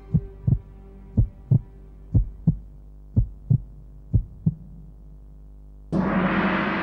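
Heartbeat sound effect: five slow double thumps, lub-dub, about one a second, over a low hum. About six seconds in, a sudden loud hit cuts in and rings on.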